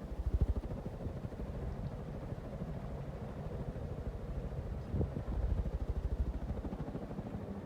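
NuTone Verandah Deluxe ceiling fan running, its blades' air buffeting the microphone in a rapid, regular low pulsing over a faint steady motor hum.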